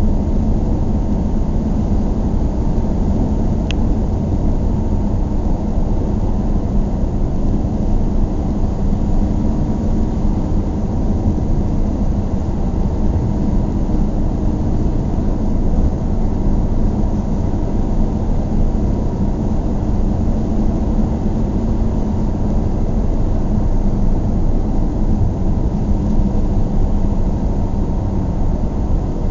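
Steady low rumble of a vehicle running without let-up, with a faint single click about four seconds in.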